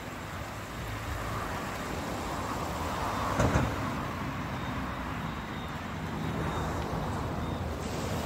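Sea surf washing against a rocky shoreline: a steady rushing noise, with one brief louder burst about three and a half seconds in.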